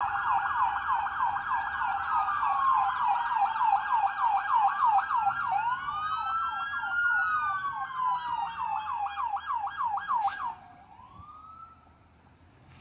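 Emergency vehicle sirens, two at once: one in a rapid yelp, the other in a slow rising and falling wail. Both cut off about ten and a half seconds in, followed by a brief rising whoop.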